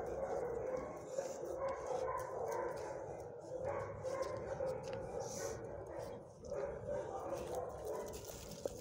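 Dogs barking and yipping in the shelter kennels, a continuous overlapping din with no single loud bark standing out.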